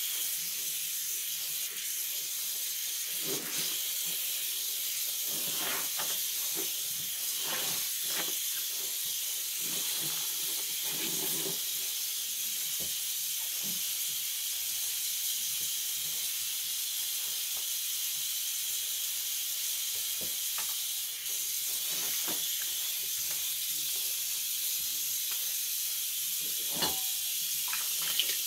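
Steady high-pitched hiss, with a few faint scattered knocks and soft handling-like sounds underneath.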